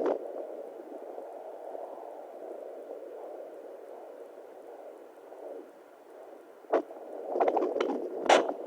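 Home fetal Doppler's speaker playing a soft whooshing, gurgling sound that slowly swells and fades. About seven seconds in comes a sharp crackle, then louder scraping crackles from the probe moving on the skin.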